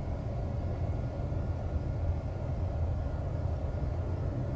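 Steady low rumble of jet aircraft engines with a faint steady whine.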